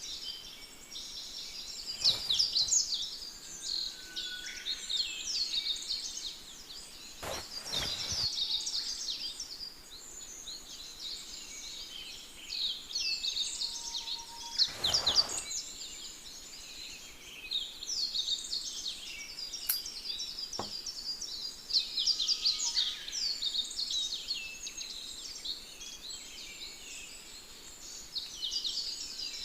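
Birds chirping and singing without pause, many short high calls overlapping, with a few brief rustles about 2, 8 and 15 seconds in.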